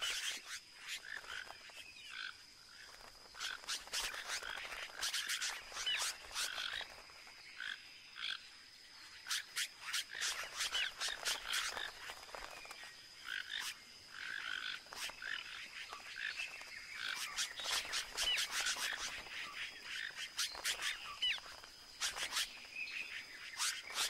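Caciques giving harsh, rapid alarm calls in repeated flurries, mixed with short higher notes: agitated birds mobbing a toco toucan that is raiding their hanging nests.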